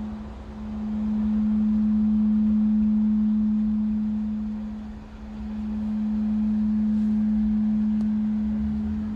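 Bronze church bell 'Michael' (strike note A-flat, cast 2006 by Rudolf Perner) ringing, heard close up in the bell chamber. Its low hum note sounds steadily and swells and fades about every five seconds.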